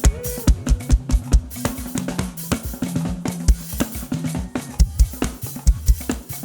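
Live band playing an instrumental passage: a drum kit keeps a fast, steady beat of kick drum, snare and cymbals over sustained bass notes.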